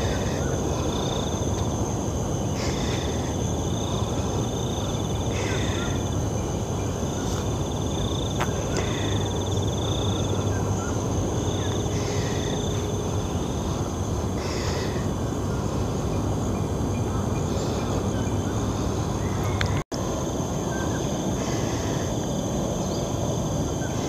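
Outdoor park ambience: a steady low rushing noise with a steady high whine over it, and a short call repeating every two to three seconds. The sound cuts out for an instant near the end.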